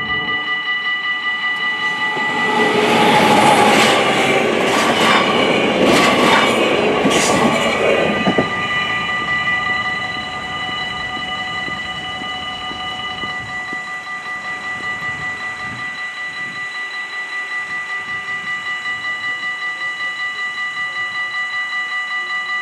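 Dutch level-crossing warning bells ringing steadily. From about two seconds in to about eight seconds in, a train passes over the crossing, its wheels clattering over the rail joints; the bells keep ringing after it has gone.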